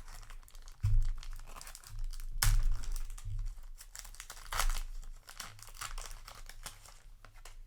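Trading-card pack wrapper being torn open and crinkled by hand, with a few dull handling thumps, the loudest about a second in and around two and a half seconds in.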